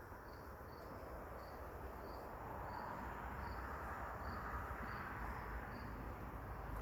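Honeybee colony buzzing steadily from the open hive, growing slightly louder, with a faint high chirp repeating about three times every two seconds.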